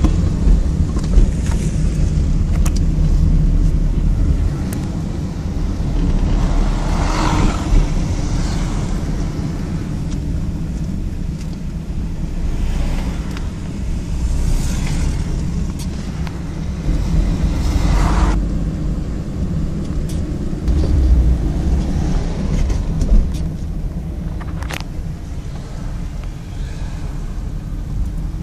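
Road noise heard from inside a moving car: a steady low rumble of engine and tyres, with a few brief louder whooshes partway through.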